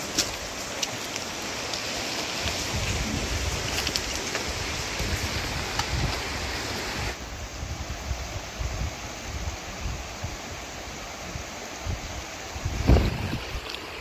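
Shallow mountain stream running over rocks, with wind buffeting the microphone in low gusts and a few light clicks. A brief loud thump comes near the end.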